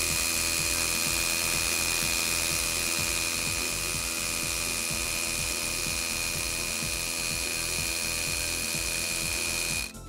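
Makita HR183D 18V cordless hammer drill boring a 10.5 mm hole sideways into concrete in hammer-drill mode: a fast, steady hammering under a constant high whine, stopping abruptly near the end.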